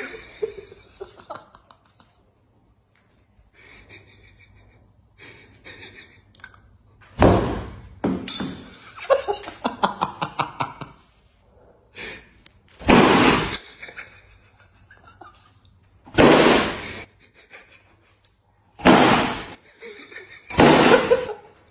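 Foam pool noodles smacking, about six loud whacks a few seconds apart, the first two close together. Laughter between the hits.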